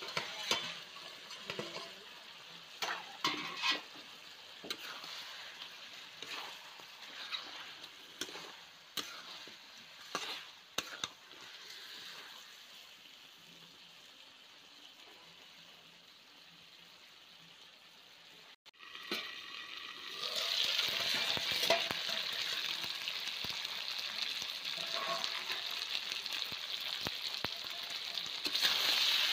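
Chicken curry sizzling in a steel kadai, with scattered metal scrapes and knocks of stirring. After a brief dropout about two-thirds through, the sizzling turns louder and steady.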